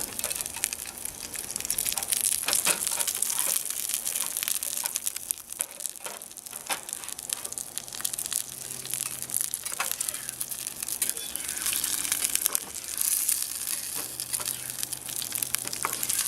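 Instant grits frying in hot oil in a mess kit pan: a steady sizzle dense with small crackles and pops, and a few sharper clicks.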